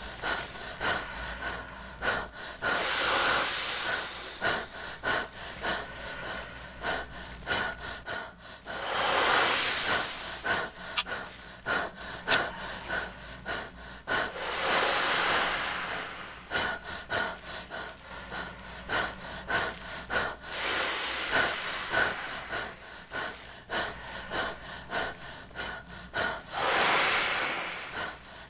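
A man breathing hard into a large plastic bag: a loud gasping intake of breath about every six seconds, five in all, and between them his exhalations into the bag with the thin plastic crackling.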